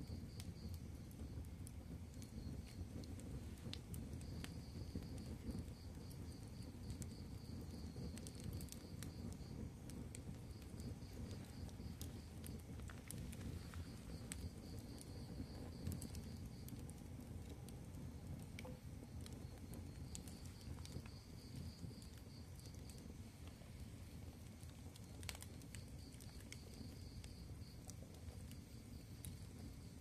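Wood fire of split planks burning: a steady low rumble of flames with scattered sharp crackles and pops. A high pulsed trill comes in short runs every few seconds.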